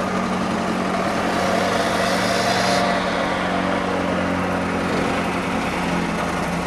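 Construction machinery engines running steadily on a paving site, a diesel-type hum, with a hiss that cuts off suddenly about three seconds in.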